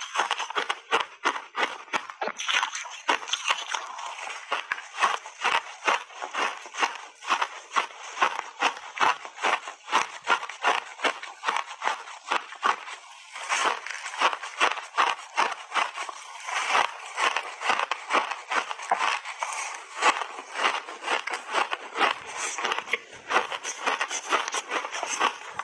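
Blueberry block ice dusted with matcha powder being bitten and chewed, close to the microphone: a quick, steady run of crisp ice crunches, several a second.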